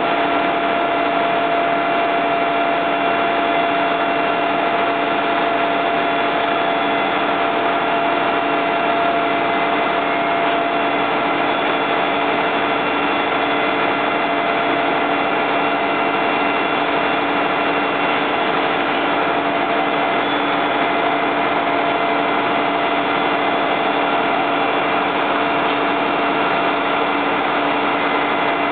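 Fire engine running steadily: an unbroken mechanical drone with a constant whine over it.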